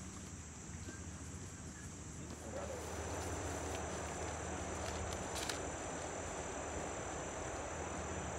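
Insects buzzing steadily at a high pitch. About two and a half seconds in, a broad hiss grows louder and holds.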